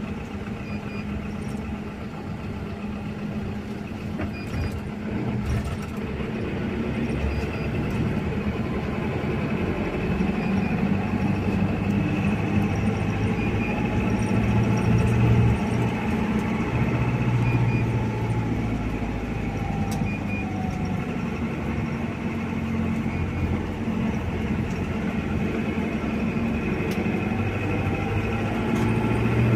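Engine and road noise of a passenger van heard from inside its cabin while it drives, growing louder over the first ten seconds or so as it picks up speed.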